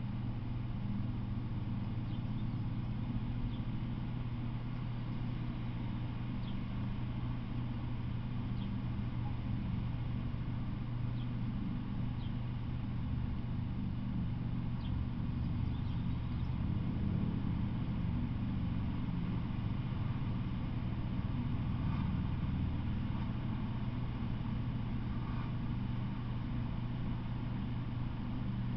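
A steady, unchanging low hum, with a few faint short high chirps scattered through it.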